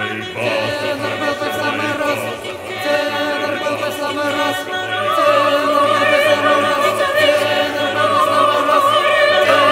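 A mixed choir singing in Russian with full, operatic vibrato, the sung lines asking for a fine bass and saying a tenor would be just right. It swells louder about halfway through, with high voices on long held notes.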